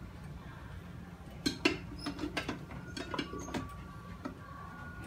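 A spoon scooping rice out of an electric rice cooker's pot onto a plate: a run of light clicks, taps and scrapes starting about a second and a half in, the sharpest knock near the start of the run, over a steady low hum.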